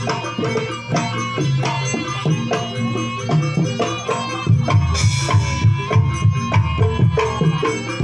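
Live Javanese gamelan accompaniment for jaranan dance: hand drums beating over sustained ringing metal tones. About halfway through the drumming grows louder, with heavy low strokes about three times a second, and a brief metallic hiss comes just after.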